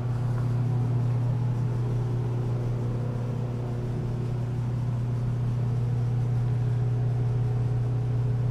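A machine's steady low hum, with one strong low pitch and fainter overtones above it.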